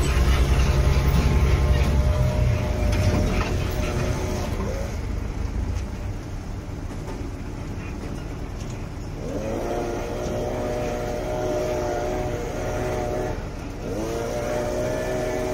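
A heavy vehicle's engine rumbles loudly close by, fading after about two seconds. Later an engine revs up and holds a steady pitch twice, each time for about four seconds.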